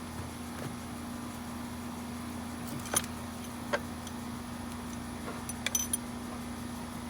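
Sharp metallic clicks and taps from tools and engine parts being handled: one about three seconds in, another shortly after, and a quick cluster of light clicks near the end, over a steady low hum.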